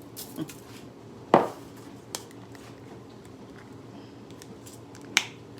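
A few sharp knocks and clicks of kitchen items being handled on a counter, with the two loudest about a second in and near the end, over a low steady room hum.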